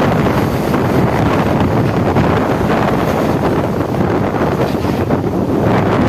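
Storm wind blowing hard, a loud, steady, dense rushing noise with no letup.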